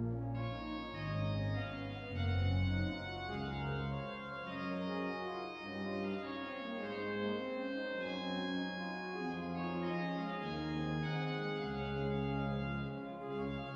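Sampled Cavaillé-Coll pipe organ of Saint-Étienne, Caen, played on a virtual pipe organ console: slow, sustained French Romantic chords over a moving pedal bass, with a fresh chord sounding right at the start.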